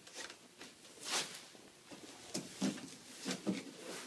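Corrugated cardboard panels of a cremation container being handled and folded: a short scrape about a second in, then several brief knocks and rustles of the board.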